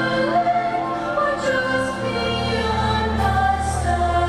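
Fireworks show soundtrack with a choir singing held notes over the music; a deep sustained bass comes in about halfway through.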